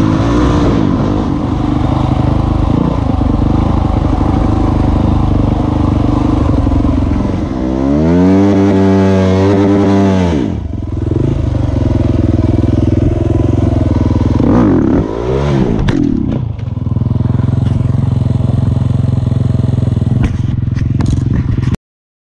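Husqvarna enduro dirt bike engine running under load on a trail ride, its pitch rising and then dropping sharply around eight seconds in and again briefly about fifteen seconds in. The sound cuts off suddenly near the end.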